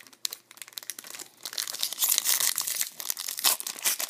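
Glossy wrapper of an Upper Deck Trilogy hockey card pack being crinkled and torn open by hand: light scattered rustles at first, then dense crinkling from about a second and a half in.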